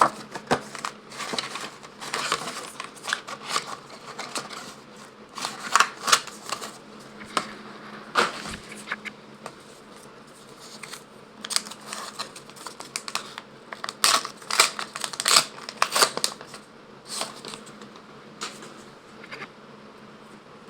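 Crinkling and tearing of a Pokémon trading-card pack wrapper and cards being slid and shuffled by hand, in irregular bursts, over a faint steady hum.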